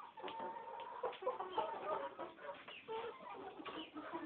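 A flock of young chickens clucking and calling, with many short overlapping calls and one longer drawn-out call about half a second in.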